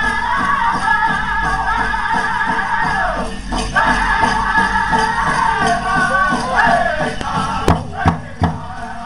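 Powwow drum group singing a Chicken dance song in high voices over the drum. About seven seconds in the singing breaks off, and a few hard, separate drum strikes follow.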